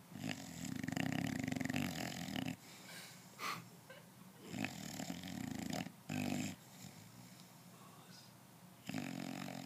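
English bulldog snoring loudly in its sleep: three long, rattling snores of one to two seconds each, near the start, in the middle and near the end, with a shorter snore just after the middle one and quieter breaths in between.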